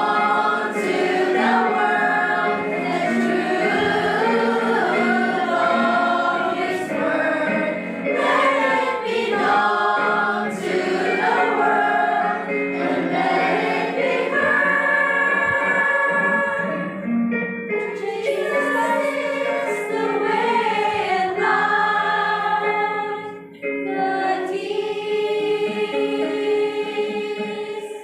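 Background music: a choir singing a gospel hymn with steady accompaniment.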